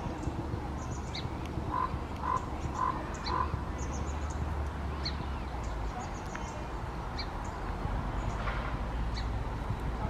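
Scattered short, sharp chip calls of small birds over a steady background hiss, with a run of four evenly spaced lower notes about two seconds in.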